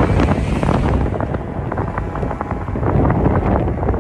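Heavy wind buffeting the microphone over the rush of water and a small boat's outboard motor running at speed.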